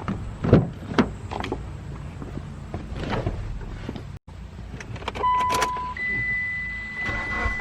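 Several sharp clicks and knocks, then a steady electronic beep from a Mitsubishi Lancer Evolution X that steps up to a higher held tone about a second later, as the car's ignition is switched on before starting.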